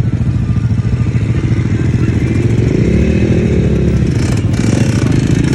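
ATV engine running steadily with a pulsing low hum, its pitch rising and falling back about halfway through.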